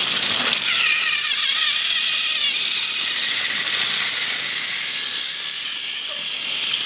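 Battery-powered Thomas & Friends toy train motors whirring steadily as the engines run past on plastic track, with a wavering whine in the first two seconds.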